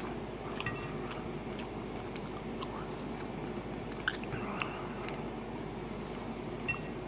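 Close-up chewing of a mouthful of chili and rice, with scattered soft wet mouth clicks, over a steady low background hum.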